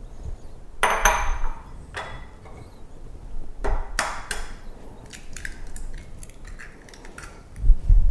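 Glass bowls clinking and knocking on a granite countertop, with eggs tapped on a bowl rim to crack them. One ringing glass clink comes about a second in, a few sharp knocks around the middle, lighter ticks after, and a dull thump near the end.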